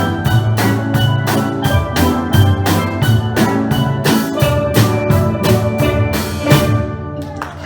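Steel pan band with a drum kit playing a steady, even beat, closing on a final ringing chord near the end.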